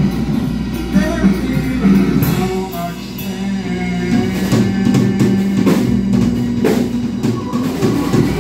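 Live band music: a drum kit playing scattered hits over a sustained low drone.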